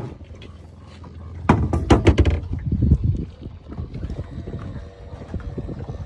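Wind and water noise aboard a small fishing boat, with a burst of loud knocks and clatter between about one and a half and three seconds in.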